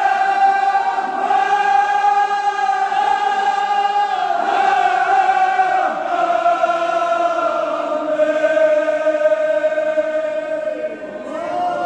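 Kashmiri marsiya, a Shia elegy, chanted by a group of men in unison, in long held notes that slowly sink in pitch. The voices dip briefly near the end before a new phrase begins.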